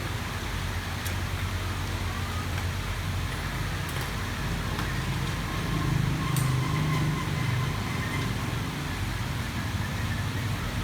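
Motorbike engine running steadily, a little louder for a moment about six seconds in.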